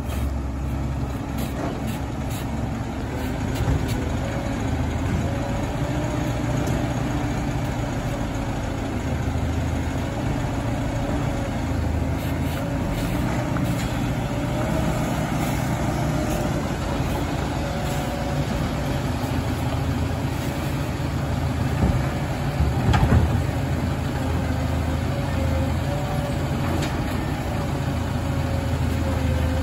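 Dennis Elite 6 side-loader garbage truck's diesel engine running low and steady as it draws up and stands at the kerb, with a steady whine over the engine. About 22 to 23 seconds in come a few clunks, and near the end the automated side arm is lifting a wheelie bin.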